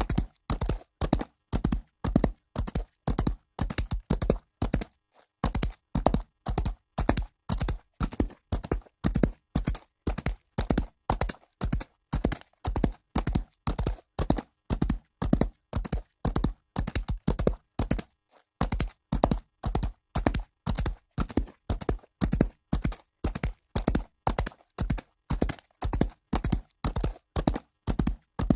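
A horse galloping on dirt: a rapid, steady run of hoofbeats, about three to four a second, broken by two brief pauses.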